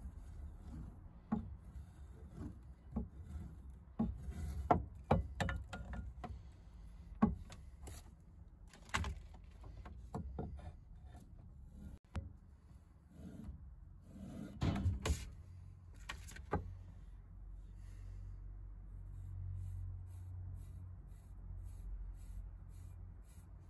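Steel axe head drawn along a leather belt used as a strop, giving irregular rubbing strokes and light knocks. The strokes die away in the last several seconds.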